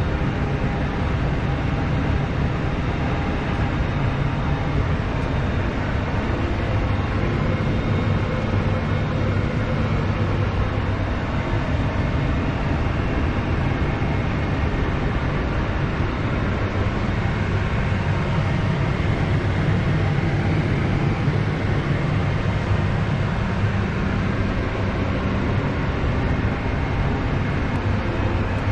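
Case Puma 175 tractor's diesel engine pulling a Case RB465 round baler, running steadily under load while baling.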